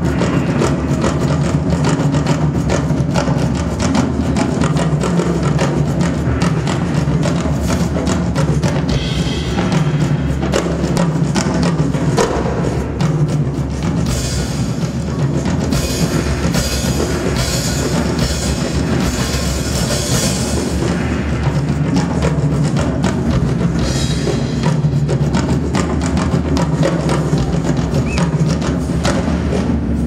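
Live percussion music led by a drum kit, played in fast, dense strokes over a steady low tone. About halfway through, a brighter hissing layer joins for several seconds.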